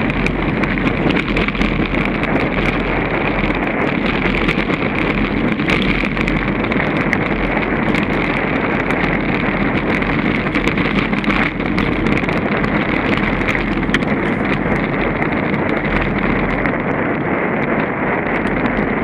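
Mountain bike with knobby tyres rolling over a rough stony dirt trail: a steady rumble of tyres on gravel with wind buffeting the microphone, and constant small rattles and clicks from stones and the bike.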